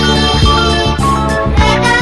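Loud music with a steady beat.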